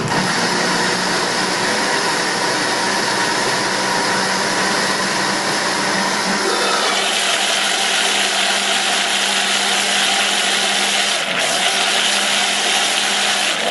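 Countertop electric blender running steadily, puréeing raw pizza sauce. About halfway through its sound turns higher and brighter.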